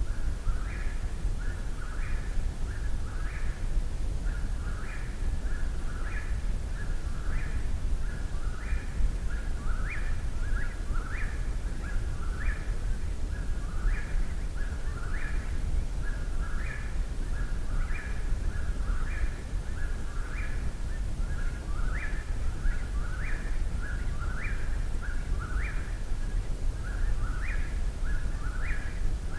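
Eastern whip-poor-will singing its whistled 'whip-poor-will' phrase over and over, about once a second without a break, over a low steady rumble.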